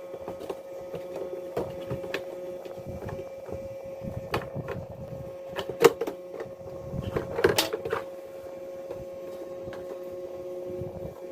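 Plastic parts of a spin mop set being handled, giving scattered clicks and knocks, the loudest about six and seven and a half seconds in, over a steady hum.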